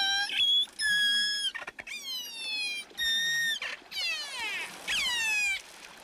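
Killer whale calls heard underwater: about six high, squeaky calls in a row, some held at one pitch and others gliding downward. They are the strange squeaks and squawks orcas make while rubbing on a pebble beach.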